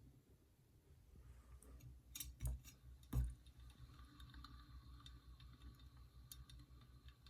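Ceiling fan motor spinning with its bearings giving faint, irregular gentle clicks over a faint steady whine and low hum, with two louder knocks about two and a half and three seconds in.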